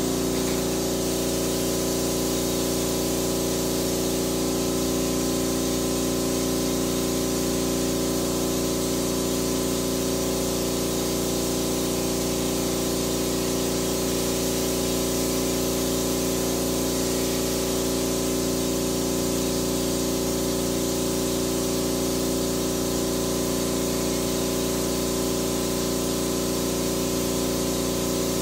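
Electric pest-control sprayer running steadily: a constant motor hum with an even hiss of spray from the wand.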